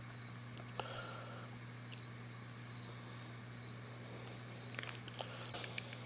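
Faint insect chirping, a short high chirp about once a second, over a low steady hum. A few soft clicks come near the end.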